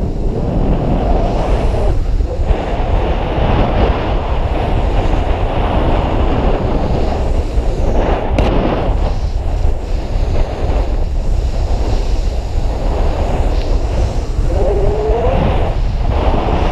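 Wind buffeting an action-camera microphone, mixed with the rush of powder snow spraying under a rider descending fast: a loud, steady rushing noise.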